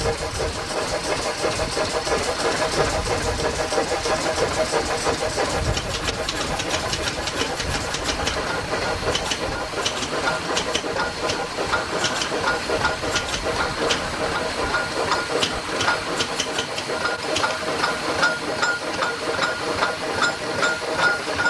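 Steam hissing steadily from a Fowell steam traction engine raised in steam, its smokebox open with no chimney fitted. From about six seconds in, sharp clicks and knocks join the hiss, turning into a quick, regular ticking beat over the last few seconds.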